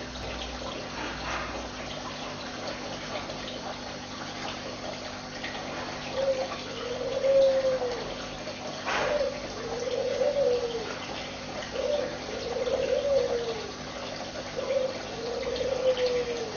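Steady trickle and splash of aquarium water over a low hum. From about six seconds in, a bird coos over it in a repeated pattern: a short note, then a longer note that rises and falls, about every three seconds, louder than the water.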